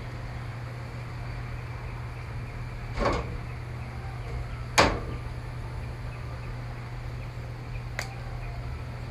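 Three sharp plastic clicks, the loudest about halfway through, as the back cover of a Samsung Galaxy Tab 4 is pried at its edge, over a steady low hum.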